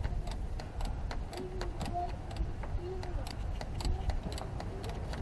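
Scattered light clicks and taps of hands and tools working on the starter solenoid's cable terminal and nut, over a steady low background rumble.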